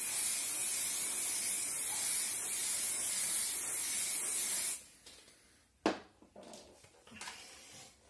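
Aerosol mop spray hissing in one long continuous burst onto a microfibre mop pad, cutting off sharply about five seconds in. A few light knocks follow as the plastic mop tank is handled.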